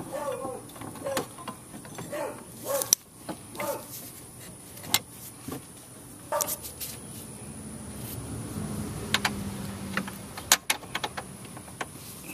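Steel lift-kit brackets and hardware clicking and knocking against each other and the golf cart's rear axle as they are fitted by hand: a scattering of sharp single clicks, the loudest about three seconds in. A low hum swells in the middle and fades out.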